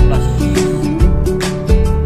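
Background music: a guitar-led song with held notes and a steady beat.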